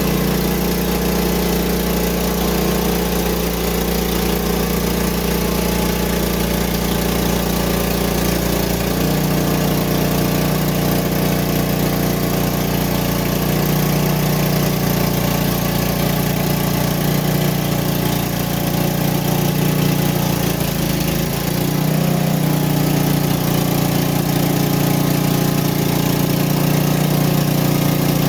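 Small gasoline engine of a Frontier OS23 portable band sawmill running steadily, its tone shifting about nine seconds in and again a little after twenty seconds.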